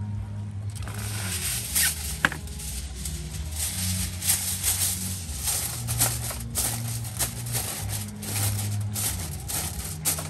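Aluminium foil crinkling and rustling again and again as it is folded and pressed by hand, with one sharp click about two seconds in. Background music with a steady bass line runs underneath.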